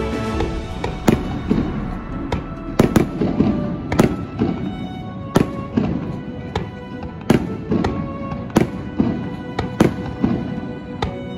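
Aerial firework shells bursting overhead, about ten sharp bangs at uneven intervals, over background music with sustained tones.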